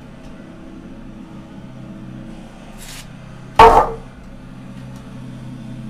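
Audi engine idling steadily just after its first start following repair. About three and a half seconds in, a brief, very loud tonal blast cuts across it.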